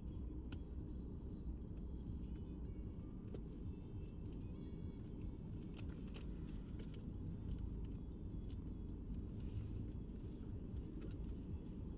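Steady low rumble with scattered small crinkles and clicks of a plastic wrapper being handled and torn at while a squishy toy is opened.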